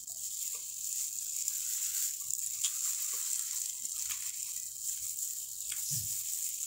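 Quiet eating sounds: soft chewing and small ticks as plastic-gloved fingers pick apart a fried tilapia on a plate of rice, with a soft thump near the end, over a steady hiss.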